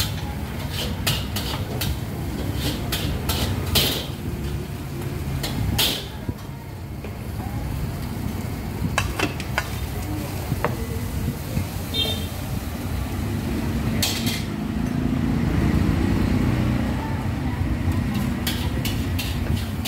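Food stall at work: repeated sharp clinks of metal utensils against pots and bowls over a steady low rumble of street traffic.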